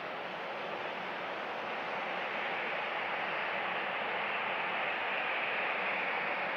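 Jet engines of an Airbus A321-211 (CFM56 turbofans) running at taxi idle: a steady hiss that grows a little louder about two seconds in as the aircraft turns toward the listener.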